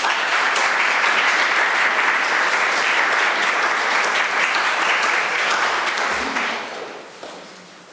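Audience applauding, a steady spell of clapping that fades away near the end.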